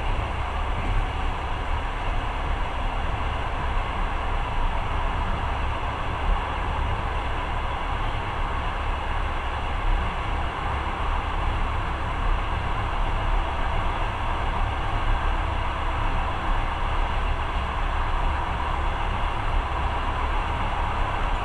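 Passenger train running steadily, heard from inside the carriage: a continuous low rumble under a steady rushing noise.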